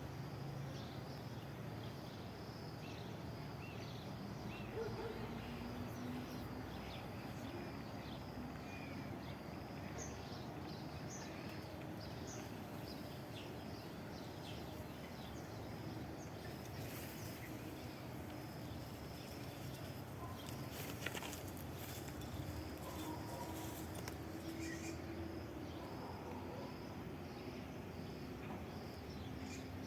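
Outdoor woodland ambience: many small birds chirping and calling over a steady background hiss, with a few brief crackles in the middle.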